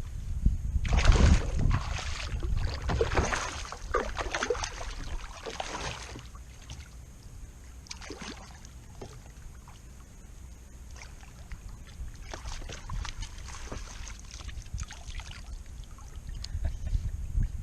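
Knocks, clicks and rattles of handling on a fishing kayak, busiest in the first six seconds, with a low rumble under them.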